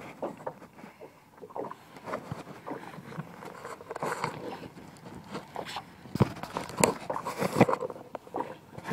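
Irregular knocks, clicks and rustling of handling in a small boat while an angler works a bent fishing rod and reel, with the loudest knocks in a cluster about six to seven and a half seconds in.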